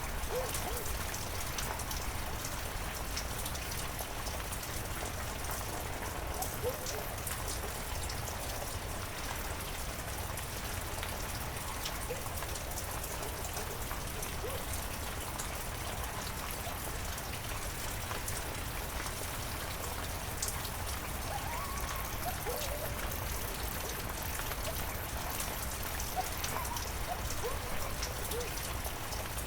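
Heavy rain falling steadily, a constant hiss with separate drop hits ticking through it.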